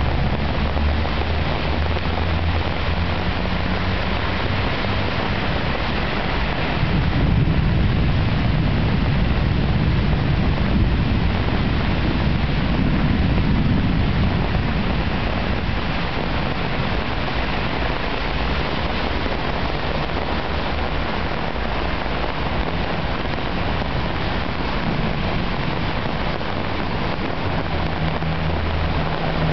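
Torrential downpour: heavy rain falling steadily, with cars driving through the flooded road. A low engine hum sits under the rain at the start and near the end, and a louder low rush swells from about seven to fourteen seconds in.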